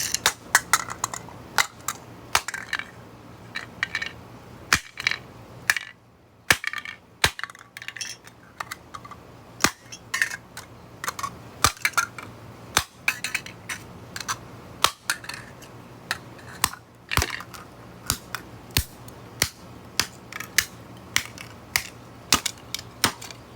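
Repeated sharp knocks and cracks as a modern light bulb is struck again and again to break it open, irregular and about one or two a second, with crunching of its breaking pieces.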